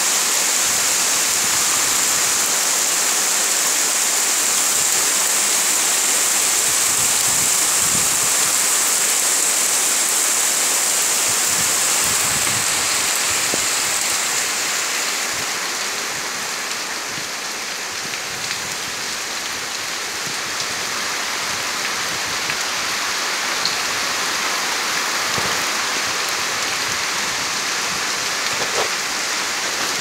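Heavy monsoon rain pouring steadily onto dense bamboo and tree foliage, a continuous hiss of drops. The downpour eases slightly about halfway through, then picks back up, with a few louder individual drips near the end.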